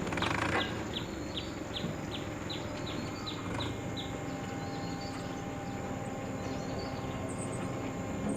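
A bird calling in a rapid series of short, high, falling chirps, about three a second, that stops about four seconds in, over steady background noise.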